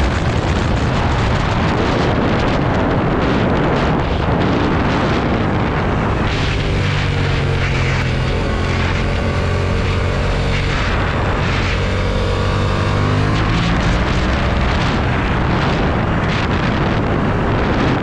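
Heavy wind noise buffeting the microphone over a 2020 Yamaha MT-07's 689 cc parallel-twin engine at riding speed. The engine's steady note comes through most clearly in the middle.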